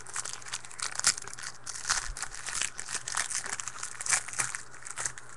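Trading-card pack wrapper crinkling and tearing as the pack is opened, a dense run of irregular crackles with a few louder snaps.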